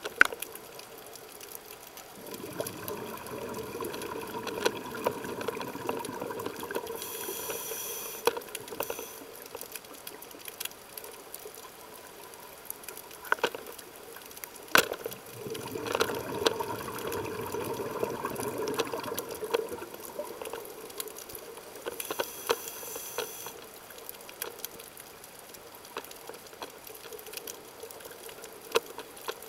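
Scuba regulator breathing heard underwater: a long rush of exhaled bubbles followed by a short hissing inhalation through the regulator, twice over, with scattered sharp clicks.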